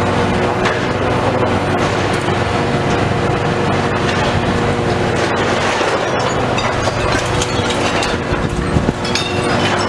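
Heavy demolition machinery at work: a diesel engine running steadily under load, with a continuous clatter and crunch of breaking metal and concrete and a sharper knock near the end.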